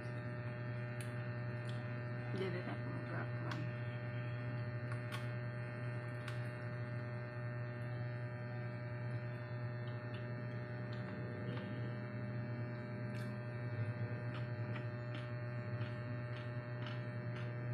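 Steady low electrical hum with a few fainter steady tones above it, under scattered short clicks and smacks of someone eating rice and fried chicken by hand.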